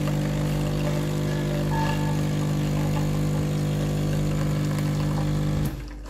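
Nespresso Lattissima One capsule coffee machine's pump humming steadily while it brews coffee into a metal mug. It cuts off sharply near the end as the brew finishes.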